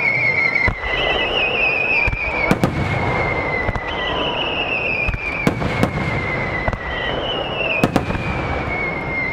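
Starmine fireworks barrage: a continuous rumble of shell bursts with sharp bangs every couple of seconds. Over it, whistling shells give a high whistle that slides down in pitch, a new one about every three seconds.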